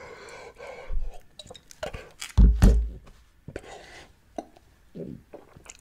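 A man chewing and swallowing a mouthful, with scattered light clicks and clinks of a container being handled and one heavier low bump a little over two seconds in.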